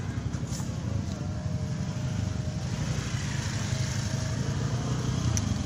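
A steady low rumble, with one short sharp click a little after five seconds in.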